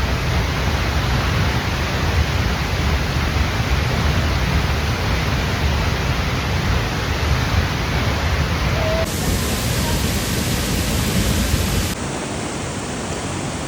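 Waterfall rushing: loud, steady noise of falling water with no tone or rhythm. Its character changes abruptly about nine and twelve seconds in, where the recording cuts between shots.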